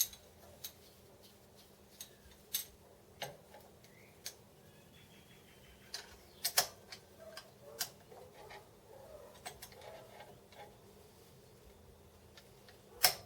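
Metal parts and a stand-in clamp being handled and set on a workpiece: irregularly spaced sharp clicks and light metallic knocks, the loudest about halfway through and near the end.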